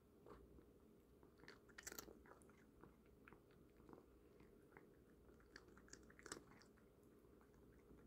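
Cat chewing crunchy Temptations treats: faint, irregular crunches, the clearest about two seconds in and again near six seconds.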